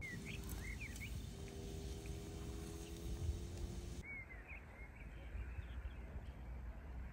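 Outdoor rural ambience: small birds chirping in short, quick calls over a steady low background rumble. A faint steady hum runs through the middle for a few seconds.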